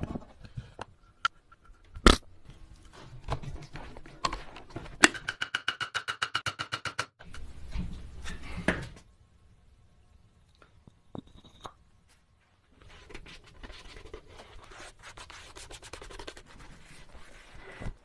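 Wooden table-base parts being handled, knocked and slid together. There is a sharp knock about two seconds in, then a fast, even run of rasping strokes. Scraping and rubbing take over in the later part.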